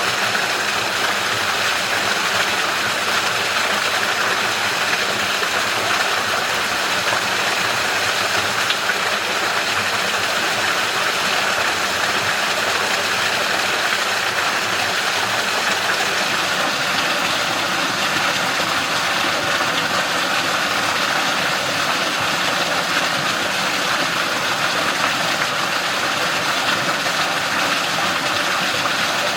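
Mountain stream water rushing and splashing between rocks in a steady, even flow.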